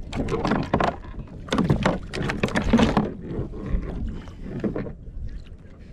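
Water splashing and sloshing against a fishing kayak in several irregular bursts, over a steady low rumble.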